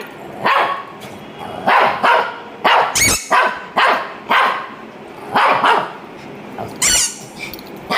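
A Shih Tzu barking repeatedly: about a dozen short barks at uneven gaps, some coming in quick runs of two or three.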